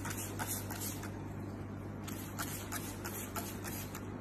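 A few short spritzes from a hand-pump trigger spray bottle over a steady low hum.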